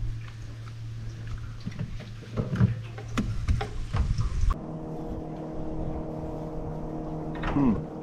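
A steady low motor hum with scattered knocks and rattles as a fish is handled in the boat. About halfway through, the sound switches abruptly to a steady, even motor drone.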